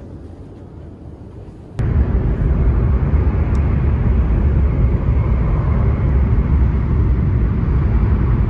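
Steady low rumble of an E7 series Shinkansen running, heard inside the passenger cabin. It starts suddenly and loud about two seconds in, after a quieter stretch of cabin noise.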